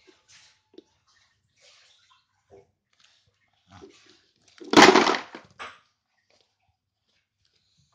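A few faint taps, then about five seconds in a loud rustling rush close to the phone's microphone, followed by a shorter one: a child's head and hair brushing against the microphone.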